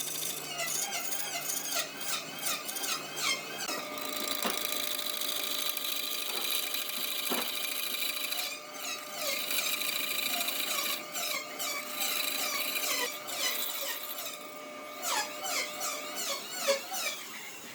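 A woodworking power tool running with a steady whine through the middle, with quick high chirping squeaks at the start and again near the end.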